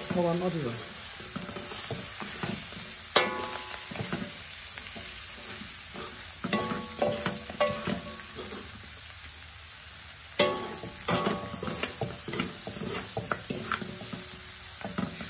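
Meat and herbs sizzling in a large wok while a metal spoon stirs and scrapes through the food. Twice the spoon knocks sharply against the wok, which rings briefly.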